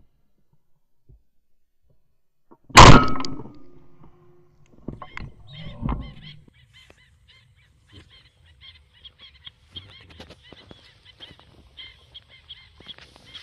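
A single shotgun shot at flying ducks about three seconds in, a sharp, very loud blast with a short tail. Afterwards, quieter knocks and faint, quick, high chirping in the background.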